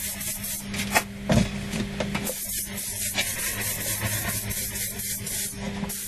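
Spray paint hissing in quick repeated bursts as a gearbox casing is painted green, with a couple of knocks about a second in.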